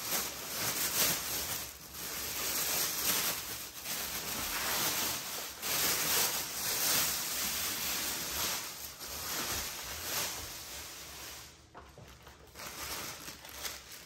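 Thin plastic bag crinkling and rustling as it is pulled off by hand, in uneven spells that thin out near the end.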